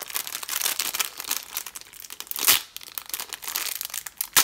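Thin clear plastic bag crinkling as fingers work it open, with a louder crackle about halfway through and a sharp one near the end.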